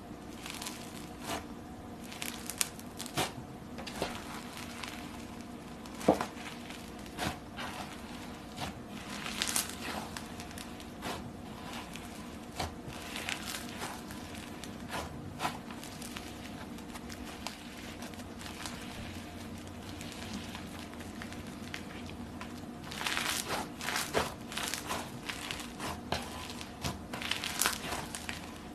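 Cloud slime being stretched and squished by hand, giving irregular small crackles and pops, with a denser run of crackling near the end.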